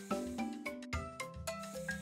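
Background music: a cheerful tune of short, quickly fading pitched notes over lower held bass notes.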